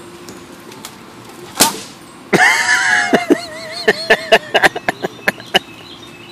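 A single sharp snap about one and a half seconds in, as the rope pulled by the car gives way. Then loud, wavering, voice-like sounds with a run of sharp clicks for about three seconds.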